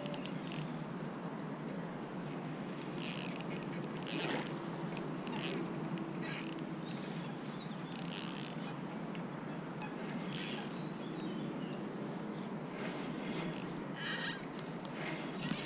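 Small spinning reel turning during a slow lure retrieve, with scattered short clicks every second or two.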